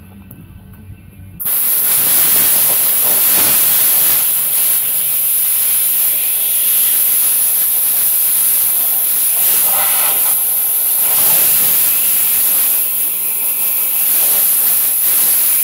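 Compressed-air blow gun blasting a loud, steady hiss of air, cutting in suddenly about a second and a half in and running on with small changes in strength.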